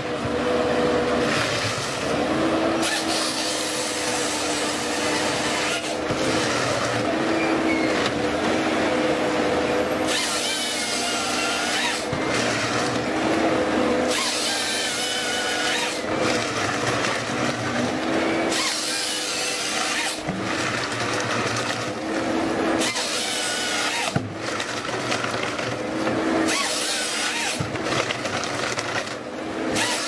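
Wheeled forestry harvester at work: its engine and hydraulics hum steadily, stepping up and down in pitch every few seconds as the harvester head saws through trunks and feeds the logs, with a brief wavering squeal about ten seconds in.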